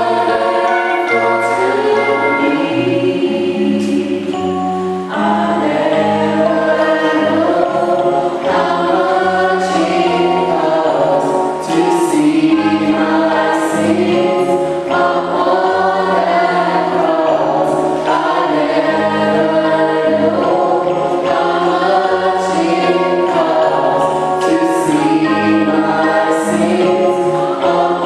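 A church choir singing in harmony, several voice parts holding sustained notes over a steady low bass line.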